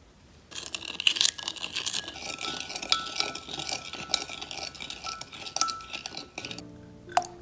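A utensil stirring quickly around a glass measuring cup, scraping and clinking against the glass, to dissolve sugar into milk. Soft background music comes in near the end.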